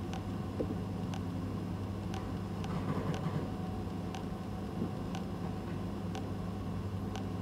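Steady low hum of room tone, with a faint regular tick about once a second from a wall clock.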